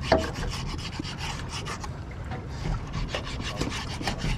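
A knife sawing back and forth through a piece of fish on a plastic cutting board, a rasping stroke repeated over and over. A sharp knock comes right at the start.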